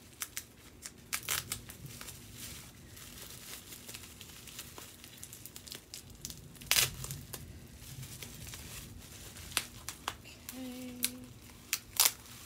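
Bubble wrap being pulled off and torn open: crinkling plastic with scattered sharp crackles, the loudest about seven seconds in and twice near the end.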